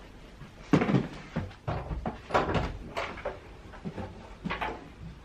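Indian fruit bat (Pteropus giganteus) chewing a piece of orange: a string of short, irregular chewing sounds, about eight in all.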